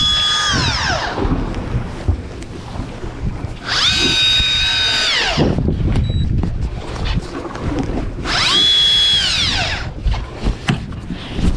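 Small electric motor whining in repeated bursts, as from a power-driven fishing reel winding line in. Each burst spins up, holds a steady pitch for about a second, then winds down. The last one starts about halfway through, over a steady low rumble of boat and wind.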